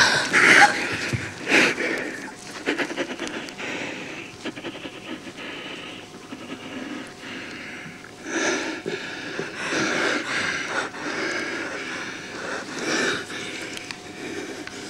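A person breathing heavily, in loud, uneven breaths, strongest in the first couple of seconds and again in the second half.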